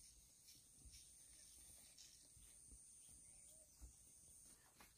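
Near silence: faint outdoor background with a thin, steady high-pitched tone that stops shortly before the end, and a few soft ticks.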